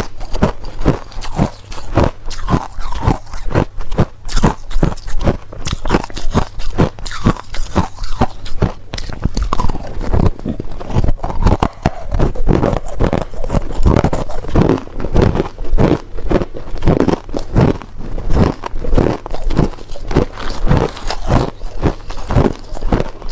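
A person biting and chewing hard ice close to the microphone: loud, rapid crunches several times a second with no pause.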